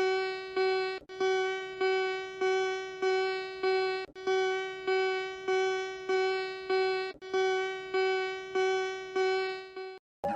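Electronic alarm tone: a single keyboard-like note struck over and over, a little under twice a second, each beep decaying before the next. The beeps come in groups of about five with a short break between groups. The tone cuts off near the end.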